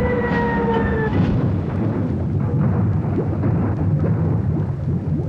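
Helicopter ditching into water: a falling whine breaks off about a second in, giving way to a loud, low churning rush of water and bubbles.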